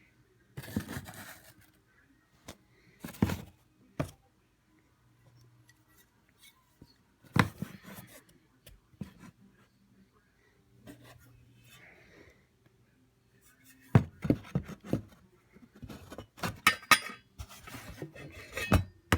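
Small objects being handled: scattered clicks, light knocks and rustling, a few at a time at first, then a busy run of them in the last few seconds.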